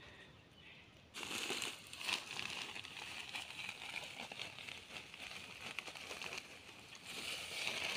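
Plastic potting-soil sack crinkling and rustling as a hand digs soil out of it, a dense crackle that starts about a second in.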